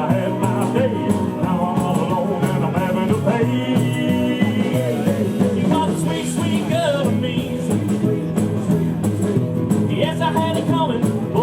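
Live rockabilly band music with a steady beat and bending melodic lines over it, playing without a break.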